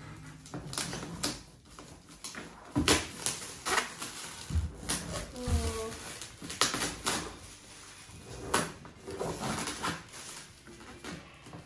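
Wrapping paper being torn and crumpled as a gift box is unwrapped, an irregular run of sharp crackles and rips. About halfway through, a brief high gliding call that sounds like a voice is heard.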